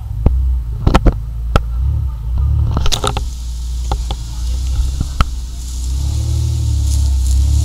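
Lifted Jeep Grand Cherokee crawling slowly down a rutted dirt trail: a steady low engine rumble with scattered sharp clicks and knocks, most of them in the first three seconds.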